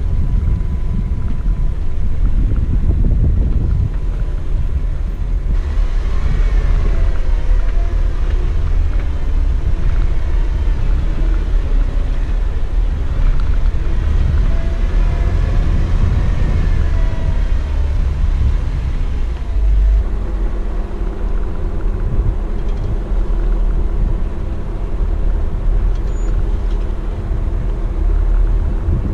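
Jeep engine running with a heavy low rumble as it crawls the trail, its pitch rising and falling through the middle, then settling into a steadier note about twenty seconds in.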